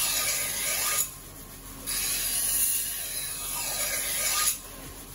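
Steel bevel of an Edo-style usuba knife pressed against a rotating wheel whetstone, smoothing out unevenness in the bevel: a grinding noise in two passes. The first ends about a second in, and the second runs from about two seconds to four and a half.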